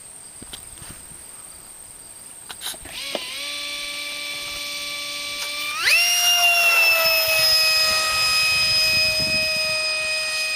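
Electric ducted fan of a radio-controlled F-4 Phantom model: a whine starts about three seconds in, then rises sharply in pitch and loudness near six seconds as the jet is throttled up to full power for take-off. The high whine then slowly drops in pitch as the model climbs away.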